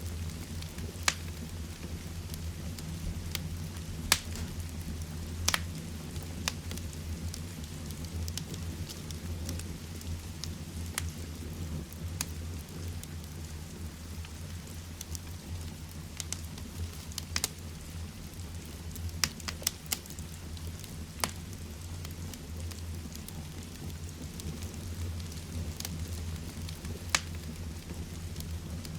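Heavy rain falling steadily while a fireplace fire crackles, with irregular sharp pops from the fire every second or two.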